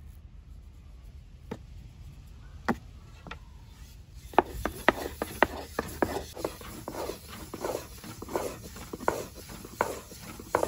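Long thin wooden rolling pin (oklava) rolling bread dough out on a floured wooden board. There are a few scattered knocks at first. From about four seconds in comes a steady run of wooden clacks and rubbing, about two a second, as the pin works back and forth.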